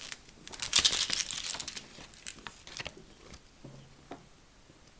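Crinkling and rustling of paper and plastic snack packaging being handled, a dense crackle from about a second in that thins to a few light clicks and rustles.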